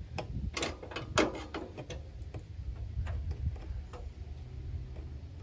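Irregular sharp clicks and taps of a hose clamp and hand tools being worked on the fuel hose fittings under the gas tank: a quick run of them in the first second and a half, then a few more spaced out.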